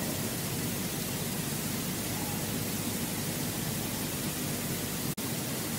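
Steady white noise laid under the audio as a sleep backdrop, an even hiss with one momentary dropout about five seconds in.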